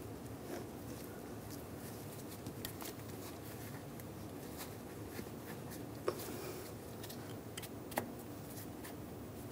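Gloved hands handling a rubber coolant hose under the engine: faint rustles and small clicks over a steady low hum, with two sharper clicks about six and eight seconds in.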